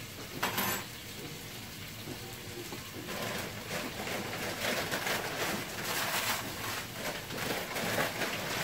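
Butter sizzling and crackling in a hot pot, the sizzle growing louder about three seconds in.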